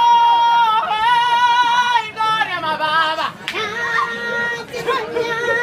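A single unaccompanied singing voice: a long high note held, then a note with wide vibrato about a second in, a quick falling run, and a lower note held with vibrato from about halfway on.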